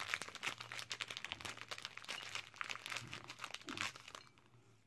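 Crinkling and rustling of a granola bar wrapper being handled and opened, a dense run of crackles that stops about four seconds in.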